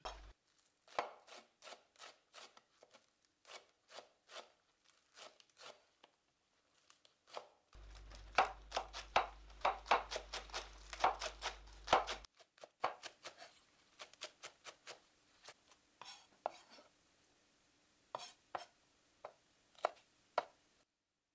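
Knife chopping food on a cutting board, a steady run of sharp strokes about two or three a second, quicker and louder around the middle, stopping shortly before the end.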